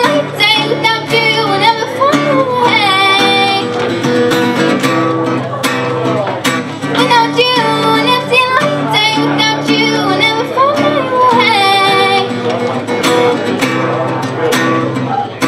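A young girl singing a slow song while accompanying herself on acoustic guitar. Her voice pauses twice, for a couple of seconds each, leaving only the guitar chords.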